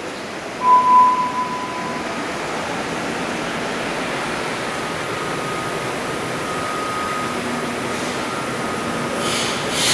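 Moscow metro 81-765 'Moskva' train standing at the platform with its doors open: a steady hum and rush of its equipment and ventilation, with a short high beep about a second in and a louder burst of hiss near the end.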